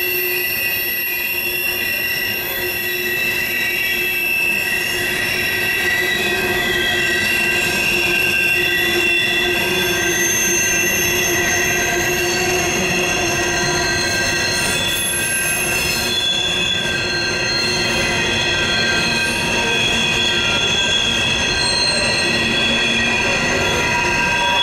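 Norfolk Southern coal hopper cars rolling around a tight curve, their steel wheels squealing steadily in several high, overlapping tones that drift in pitch as the cars pass, over the low rumble of the train.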